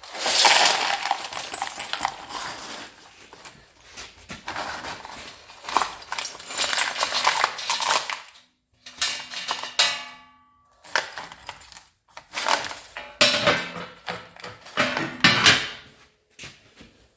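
Loose metal hardware, such as washers and nuts, clattering and jingling in irregular bursts as pieces are handled, with a short pause about halfway through.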